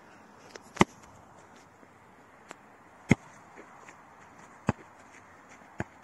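A series of sharp knocks or thuds, four loud ones spaced irregularly one to two seconds apart with a few fainter ones between, over a quiet outdoor background.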